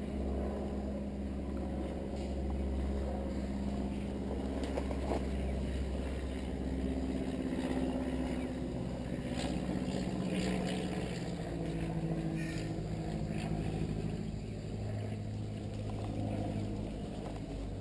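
A steady engine-like drone whose pitch shifts a few times, with a few faint clicks and rustles over it.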